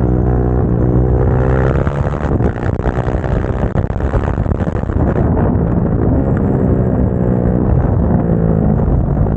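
Motorcycle engine being ridden hard, its pitch climbing as the revs rise, breaking up into a rougher, noisier stretch around the middle, then climbing again near the end.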